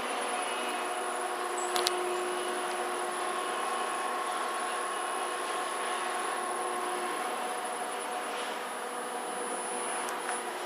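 Hyundai Luxen LXVF1 gearless elevator machine running in its machine room: a steady whine of several held tones over a constant hiss, the tones dying away about seven seconds in. A brief click sounds near two seconds in.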